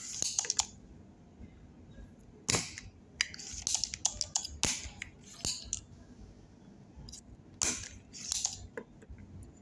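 Irregular sharp clicks and snaps from desoldering work on a circuit board with a soldering iron and a spring-loaded solder sucker, about a dozen of them, the loudest about a third of a second and two and a half seconds in.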